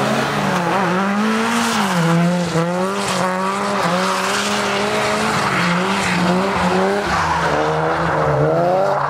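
Car engine revving hard as the car drifts on snow, its pitch rising and falling again and again with several quick climbs in revs.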